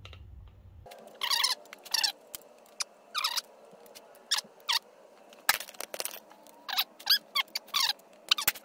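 A run of about a dozen short, high-pitched squeaks, each sliding down in pitch, at irregular spacing, with one sharp click about five and a half seconds in.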